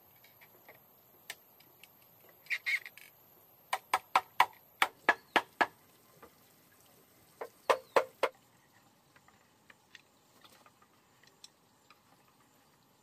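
A bamboo bed frame being struck with a wooden mallet, giving hollow wooden knocks: a quick run of about eight evenly spaced strikes about four seconds in, then four more a couple of seconds later.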